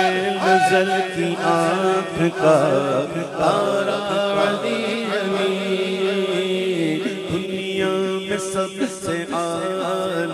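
Devotional naat singing: a wordless, melismatic solo vocal line over a steady chanted drone of backing voices.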